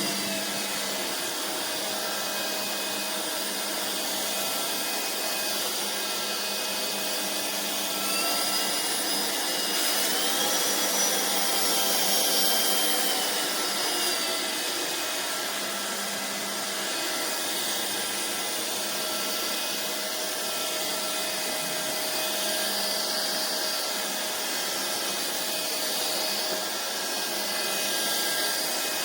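Vistefly V15s Max cordless stick vacuum running with a steady high-pitched motor whine over a rush of air. Its pitch rises about eight seconds in and drops back about six seconds later.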